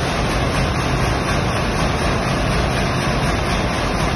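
Container ship's huge two-stroke slow-speed marine diesel main engine running, a loud steady mechanical din with a low hum under it.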